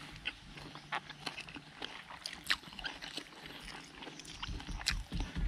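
People chewing fried banded bullfrog, with frequent small sharp crunches of crisp skin and bone. A low hum in the first second or so, and a few low bumps near the end.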